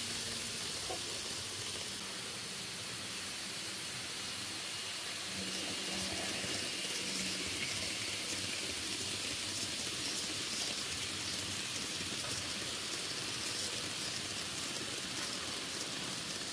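N-gauge model freight trains running on the layout, giving a steady, even hiss of small wheels on track.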